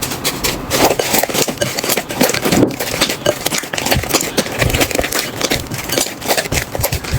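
Slime being squeezed and pressed by hand: a dense, continuous run of sticky crackling and popping clicks.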